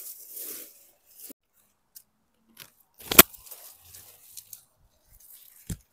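Tomato plant leaves and stems rustling as a hand moves through them, with a sharp click about three seconds in and another near the end.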